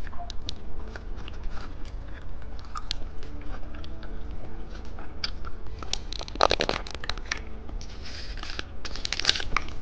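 Candy and its plastic packaging being handled: scattered small clicks and crinkles, with busier bursts of crackling about six seconds in and again near the end.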